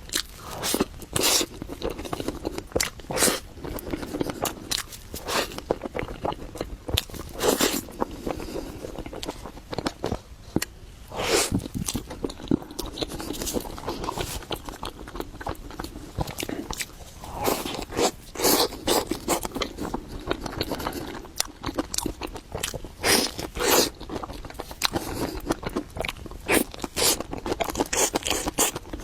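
A person biting and chewing matcha mille crepe cake close to the microphone, with irregular sharp mouth clicks throughout.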